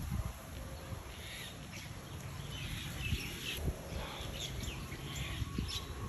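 A flock of common mynas chirping and calling while feeding on a lawn: scattered short, high chirps through the whole stretch, over a steady low background rumble.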